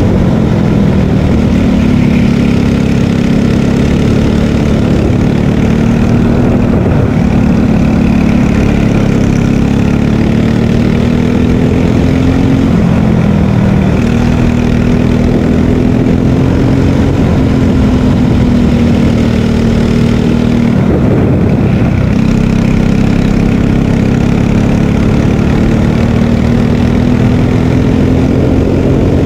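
Margay Ignite K3 racing kart's engine running hard through a lap, heard onboard. Its pitch climbs slowly along the straights and drops sharply four times as the kart slows for corners.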